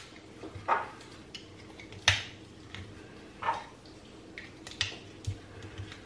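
Batteries being loaded into a toy lightsaber's battery compartment: several separate small clicks and clinks of the batteries knocking against and seating in the holder, the loudest about two seconds in.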